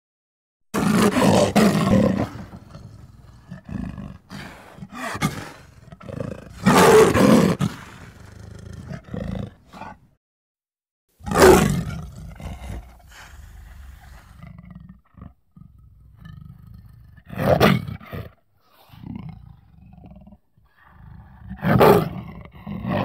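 Tiger roaring: five loud, deep roars about 1, 7, 11.5, 17.5 and 22 seconds in, with shorter, quieter roars and growls between them.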